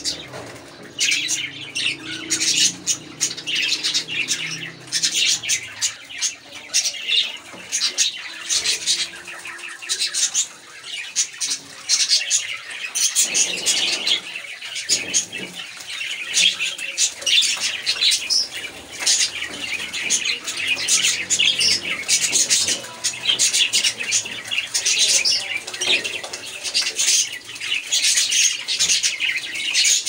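A flock of budgerigars chattering continuously, a dense stream of short, rapid chirps and squawks.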